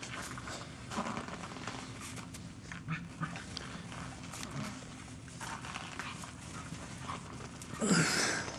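Two dogs playing, with panting and short scuffling noises. A louder sudden sound comes near the end.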